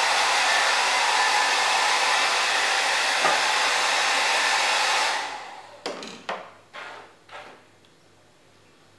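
Handheld hair dryer blowing steadily, switched off a little over halfway through and dying away. It is followed by four short knocks in quick succession.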